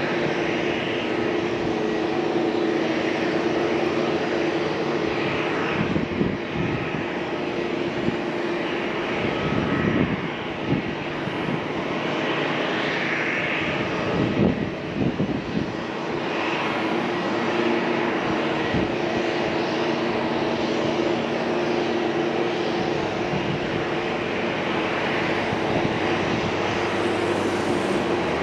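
Airliner engines running steadily, a continuous hum with several held tones over a broad rush. A few short rough rumbles break in about 6, 10 and 15 seconds in.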